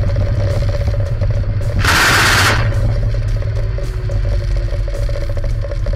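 Military helicopter cockpit noise in low flight: a steady low rotor and engine drone with a faint steady turbine whine and a fast regular beat, broken about two seconds in by a loud rushing burst lasting under a second.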